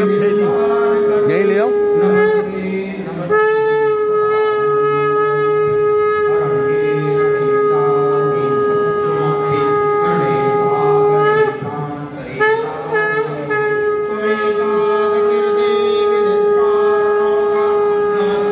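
Conch shell (shankh) blown in long, steady, loud notes for the aarti. It breaks off briefly about two seconds in and again about eleven seconds in, then rises back to the same held note.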